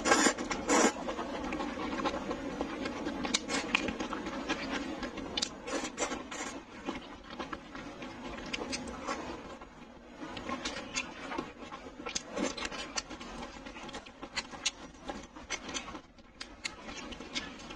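Close-miked eating of braised glass noodles: a loud slurp in the first second, then chewing with many short wet mouth clicks and smacks.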